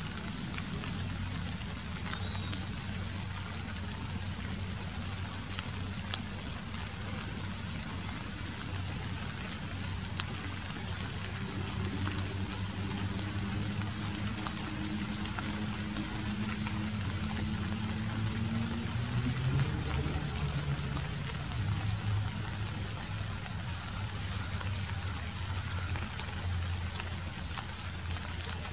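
Steady rain falling and pattering on surfaces. A low, engine-like drone with a slowly rising pitch comes and goes between about twelve and twenty seconds in.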